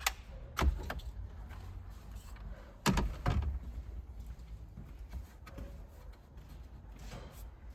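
A few sharp knocks and clunks of parts and tools being handled in a truck cab, the loudest pair about three seconds in, with fainter clicks between them over a low steady hum.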